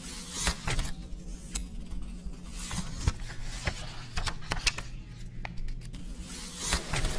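Irregular sharp clicks and clinks of New Taiwan dollar coins being handled, a few a second with some louder ones, over a low steady hum.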